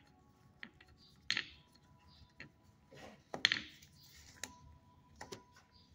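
A puppy chewing and mouthing a plush toy: soft scattered clicks and a few short muffled noises, about two of them louder, with faint music in the background.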